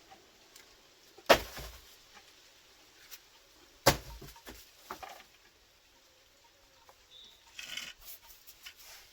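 Two loud knocks about two and a half seconds apart, with lighter clicks and rattles around them, and a short run of rattling and rustling near the end, as of tools or parts being handled; no grinder or engine is running.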